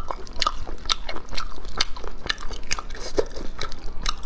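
Close-miked eating of stir-fried sea snails in their shells: chewing, with a quick, irregular run of sharp, wet clicks and smacks as the snails are picked out and eaten.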